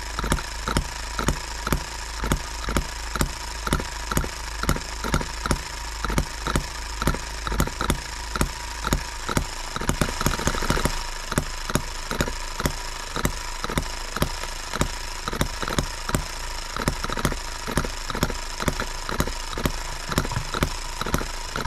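Small brass H73 model single-cylinder engine running steadily on its carburetor, with an even firing beat of about three strokes a second.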